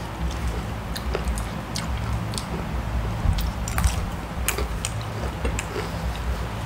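Close-up chewing and biting of food, with scattered sharp clicks of metal cutlery against plates, over a steady low hum.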